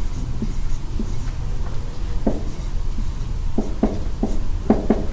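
Marker writing on a whiteboard: a run of short, irregular taps and strokes, coming faster near the end, over a steady low hum.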